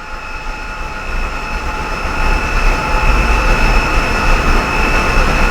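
Audi A8 rear electronic parking brake caliper motors running with a steady whine and low rumble that grows louder over the first couple of seconds, driven by the scan tool to retract the caliper pistons and open the rear brakes for a pad change.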